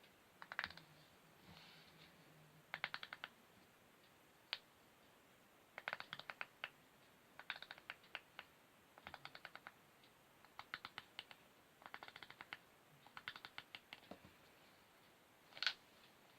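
Fingernails tapping and drumming on wood: about eight quick runs of sharp clicks, with a few single clicks between them and one louder click near the end.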